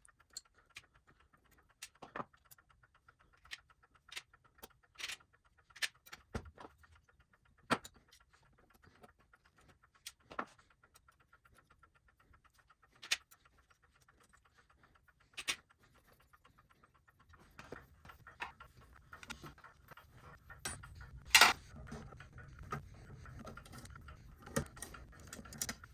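Sparse light metallic clicks and taps as pliers and small steel parts are worked off the brass plate of an antique clock movement. In the last third there is a low handling rumble with denser clicks and one louder knock.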